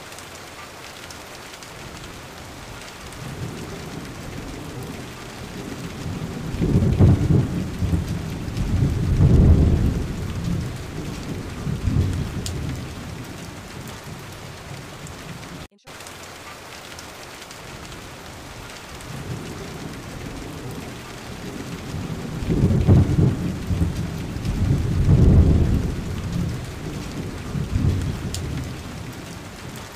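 Steady rain with deep rolling thunder. The rumbles swell about seven seconds in and fade, then the same pattern comes round again in the second half, after a brief dropout near the middle where the recording loops.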